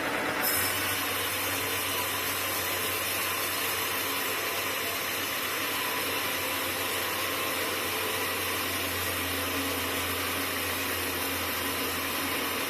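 Sawmill machinery running steadily: a constant low hum under an even hiss, both coming in about half a second in.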